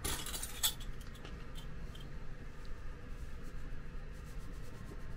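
Light clicks and rattles of metal measuring spoons on a ring being handled while salt is measured out over a bowl of flour, loudest in the first second, then a few faint ticks over a low steady hum.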